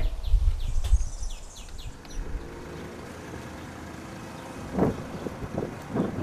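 A low rumble and a few short bird chirps in the first second or so. Then a small hatchback car's engine runs steadily as the car drives along, with two short louder surges near the end.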